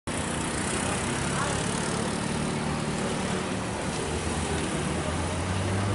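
Hino truck's diesel engine idling steadily, a low hum that grows slightly louder near the end.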